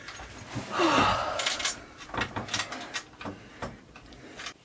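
Rustling, scraping and small knocks of bags and gear being handled on a cellar floor, loudest about a second in, then a run of light clicks and bumps that fade toward the end.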